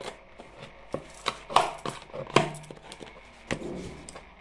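Kitchen utensils being handled: a series of sharp knocks and clinks, about six in four seconds, a couple of them ringing briefly.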